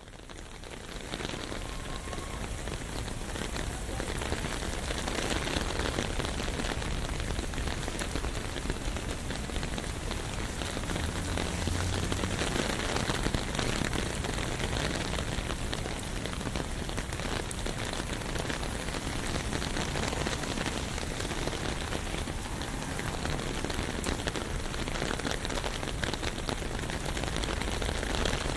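Steady rain falling on a city street, heard from beneath an umbrella, fading in over the first couple of seconds.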